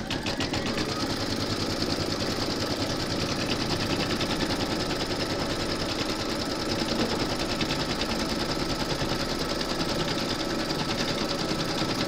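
Embroidery machine stitching an outline through batting and stabiliser in its hoop to tack the batting down, a steady run of rapid needle strokes.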